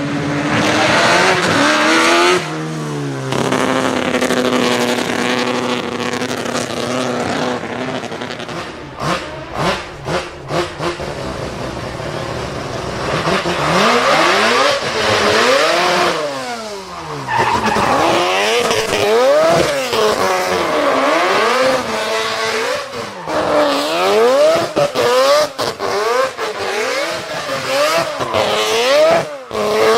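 Mazda RX-7 rotary engine revving hard in a drift, its pitch swinging up and down again and again with the throttle, over tyre squeal. A run of sharp pops comes about ten seconds in.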